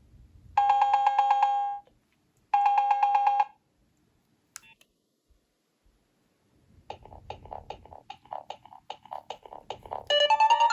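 Nokia 3300b ringtones playing through the phone's speaker. Two short electronic trilling rings sound, then after a click a new tune starts with a quick run of notes, about four a second, and near the end it turns into a fuller, louder polyphonic melody.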